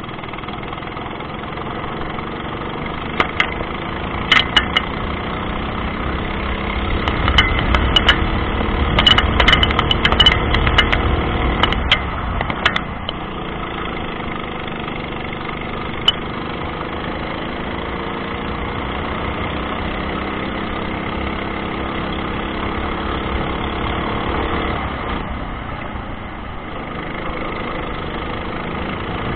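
Racing kart's small engine running close to the microphone, its pitch rising and falling through the corners. A run of sharp knocks and rattles comes between about three and thirteen seconds in.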